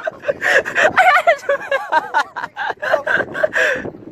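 Excited human voices, exclaiming and laughing.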